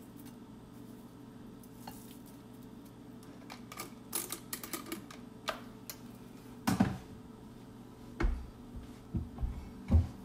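Glass spice jars being handled: light clicks and taps of glass and lids, then a few dull knocks as jars are set down, over a steady low hum.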